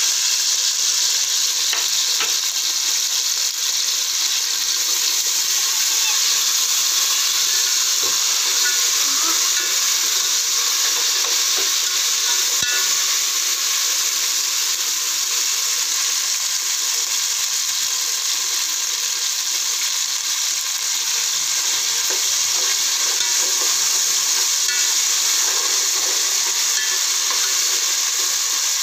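Onions, whole spices and freshly added ginger-garlic paste frying in hot oil in an aluminium pot: a loud, steady sizzle, with a few faint clinks of a spoon stirring.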